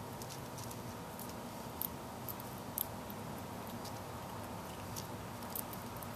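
A squirrel picking through and cracking black sunflower seeds on gravel: about half a dozen small, sharp clicks at irregular intervals over a steady background hiss.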